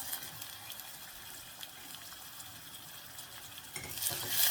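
Chopped onions sizzling in hot oil in a small pot, a steady hiss with light crackles, growing louder and busier near the end as they are stirred.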